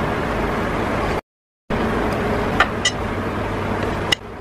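Steady rushing background noise with a few sharp clicks. It cuts out completely for about half a second a little past a second in, and turns quieter just before the end.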